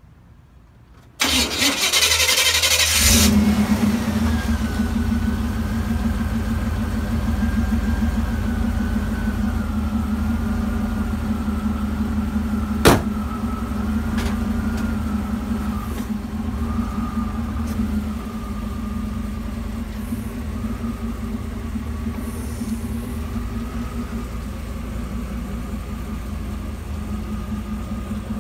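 Chevrolet pickup truck's engine starting about a second in, running up loudly for a couple of seconds, then settling into a steady idle. A single sharp click cuts through about halfway.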